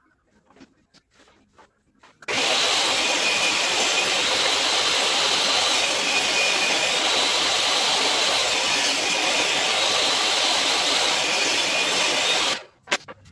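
A jobsite table saw running steadily, a loud even rushing noise with a faint high tone. It starts abruptly about two seconds in and cuts off abruptly near the end, after a few faint knocks of wood being handled.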